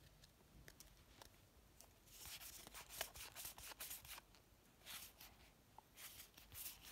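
Faint rustling of Pokémon trading cards slid one behind another by hand, a run of soft swishes starting about two seconds in, with a few more near the end.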